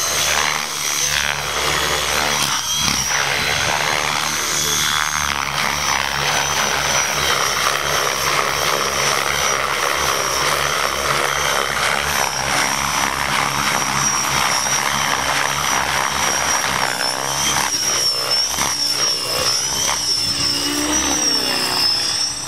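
AHF Aeolus 600 electric RC helicopter in flight: a steady high whine from its brushless motor and drive over the rush of its spinning rotor blades. The whine wavers in pitch during manoeuvres near the end.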